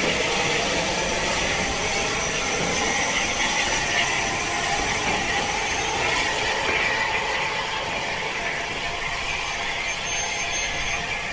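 Bulleid Battle of Britain class steam locomotive standing and simmering, with a steady hiss of escaping steam.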